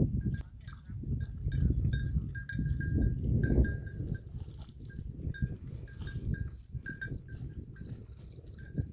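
Bells hung on buffalo clinking irregularly, several strikes a second at one bright pitch, as the animals move their heads. Louder low rustling noise runs underneath, strongest in the first few seconds.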